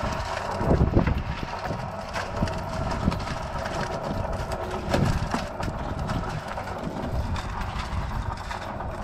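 Cement mixer running, its turning drum tipping wet concrete mix into a wheelbarrow, with irregular knocks and thuds as the mix drops out, loudest about a second in and about five seconds in.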